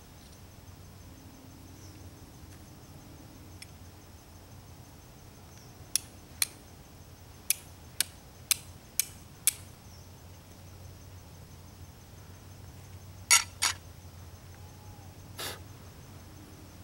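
Flint and steel being struck to throw sparks onto char cloth: sharp scraping clicks, seven strikes about half a second apart starting about six seconds in, then three more near the end.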